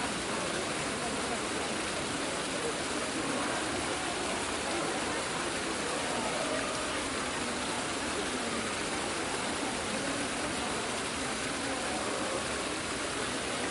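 Steady murmur of a crowd, with many indistinct voices blending into a continuous hiss-like wash.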